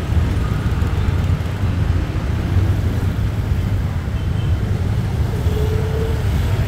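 Steady low engine and road rumble of a vehicle moving slowly through city street traffic, heard from on board.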